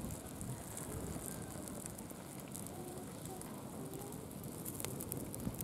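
Small open fire of twigs and dry grass crackling, with scattered sharp pops, one stronger pop near the end.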